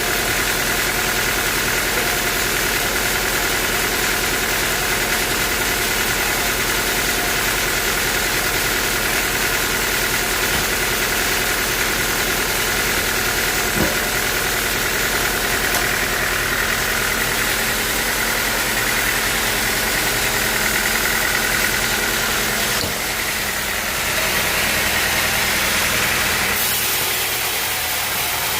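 Sawmill running steadily with a continuous mechanical drone, with one sharp tick about halfway through and a change in tone near the end.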